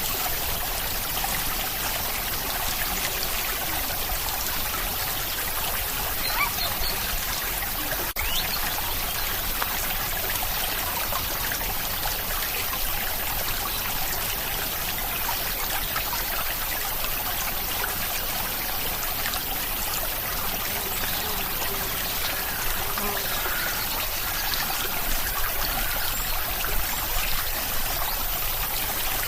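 Steady rain with running water, an even hiss that holds at a constant level.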